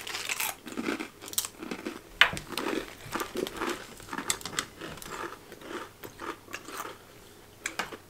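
Thin, waffle-shaped potato crisps being bitten and chewed, with irregular crunching and crackling and a sharp crunch about two seconds in.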